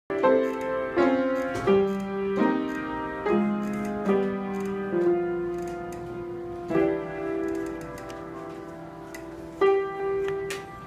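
Jazz piano playing a slow run of chords, each struck and left to ring and fade. At first they come about once a second, then further apart.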